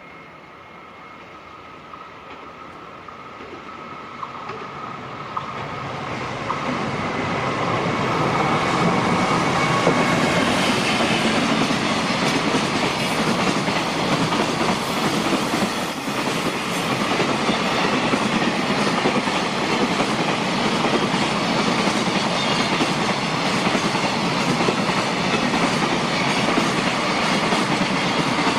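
JR Freight container train of loaded flatcars rolling past, its wheels running on the rails. It grows louder over the first eight seconds or so, then stays loud and steady as the wagons go by.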